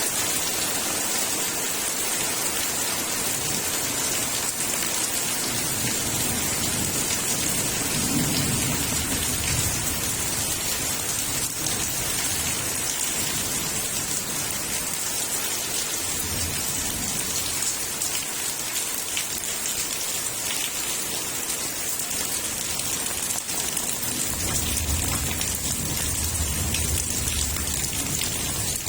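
Heavy rain pouring steadily, with low thunder rumbles rolling in several times, the longest near the end.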